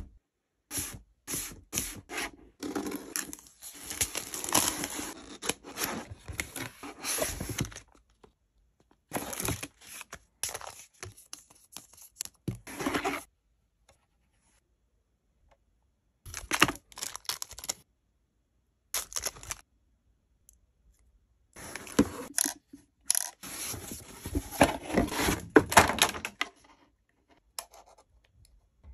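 Unboxing handling sounds: a cardboard box and a clear plastic display case being handled, with rustling, scraping and clicks, and protective plastic film being peeled off the case near the end. The sounds come in several bursts broken by dead silences.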